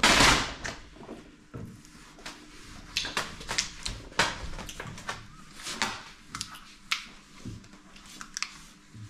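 Vinyl wrap film rustling and crackling as it is handled and pressed onto a car's side panel. A loud rustling swish comes in the first half-second, then irregular small clicks and crackles of the film.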